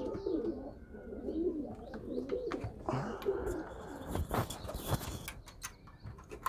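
Domestic pigeons cooing: low, wavering coos repeated through the first half, followed by rustling and a few sharp knocks in the second half.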